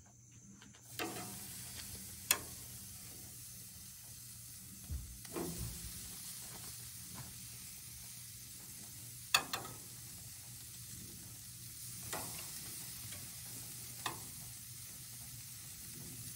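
Steaks sizzling on a hot propane gas grill, a steady sizzle that starts about a second in as the meat goes onto the grate. Several sharp clacks of metal tongs sound over it.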